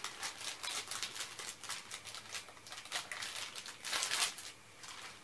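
Plastic packaging rustling and crinkling in the hands as a shipping heat pack is opened, with a louder crackle about four seconds in.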